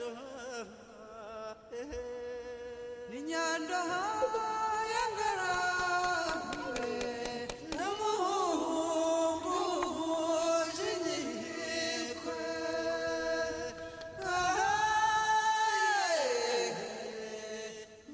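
Background music: a voice singing long, held notes that slide between pitches, chant-like, swelling about three seconds in and falling away near the end.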